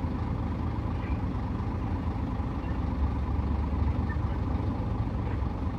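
Steady low rumble of heavy mining machinery running: the diesel engines of a Komatsu PC1250 hydraulic excavator loading a Caterpillar haul truck.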